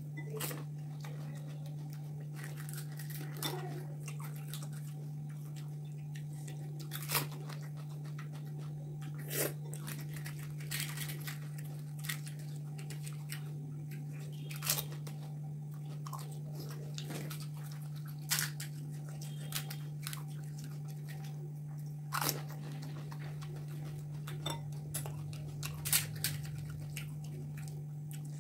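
Crisp fried panipuri shells cracking and being crunched and chewed, with sharp irregular cracks every second or two over a steady low hum.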